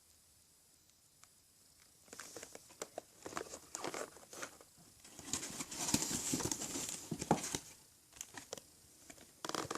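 Plastic toy packaging crinkling and rustling as it is handled, in irregular bursts starting about two seconds in, with a short lull before a final burst near the end.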